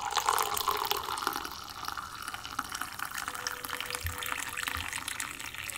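Water running and trickling as it fills a container, loudest in the first second or so and then a steady, softer trickle.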